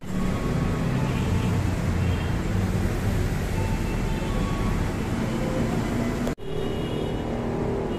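Road traffic from a busy street: cars and motorcycles running, a steady wash of engine and tyre noise that briefly cuts out about six seconds in.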